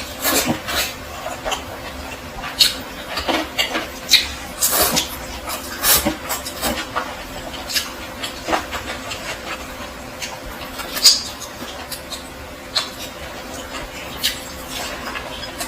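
Close-miked eating sounds of spicy instant noodles: irregular wet mouth clicks and smacks of chewing, a few to the second, with a faint steady hum underneath.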